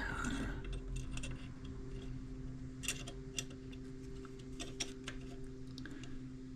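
Light metallic clicks and taps, scattered and irregular, as a measuring tool is worked in the cam chain tensioner opening of a motorcycle engine, over a low steady hum.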